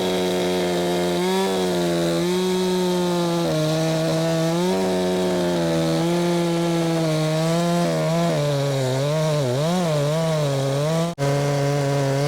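Husqvarna two-stroke chainsaw at full throttle bucking a dead ash log into rounds. The engine note holds steady, then wavers and bogs under load in the last few seconds, with a momentary break near the end.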